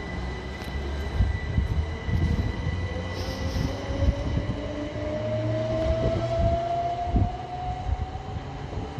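Class 357 Electrostar electric multiple unit pulling away from the station, its traction motors whining up steadily in pitch as it gathers speed, over a low rumble and knocking of the wheels on the rails.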